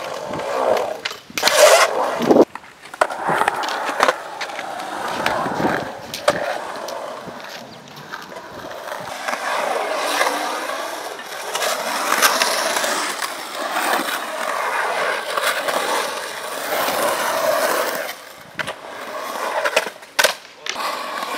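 Polyurethane skateboard wheels rolling on a concrete bowl: a steady rolling noise that swells and fades as the skater carves up and down the walls. Several sharp clacks of the board hitting the concrete come near the start and again in the last few seconds.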